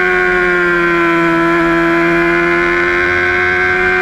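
Honda sport bike's engine running hard at high revs under full throttle, heard onboard: a steady high-pitched howl whose pitch dips slightly and then recovers, with wind noise beneath it.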